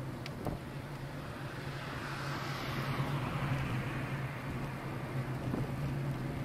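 A car passing close by on the road, its tyre and engine noise swelling about two seconds in and then fading. Under it is a steady rumble of wind and road noise on a bicycle-mounted camera's microphone.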